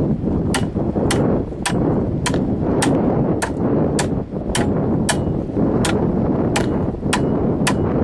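Hard, sharp strikes on the top of an upright dried coastal agave stalk, repeating steadily about twice a second, over steady wind noise on the microphone.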